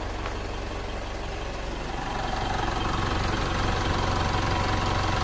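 Mitsubishi 4D56 diesel engine idling steadily, now running after a crank-but-no-start fault. About two seconds in, a higher hum joins and the sound gets a little louder.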